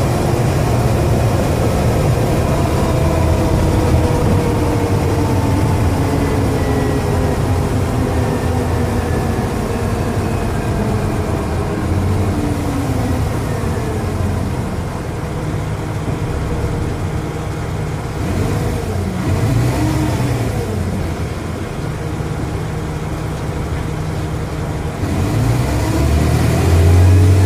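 Dennis Trident double-decker bus engine and Voith automatic gearbox running under way, a deep steady drone with whining tones that rise and fall as the bus speeds up and slows down, and the drone grows louder near the end. The whine points to a failing turbocharger, which the uploader calls a bad turbo.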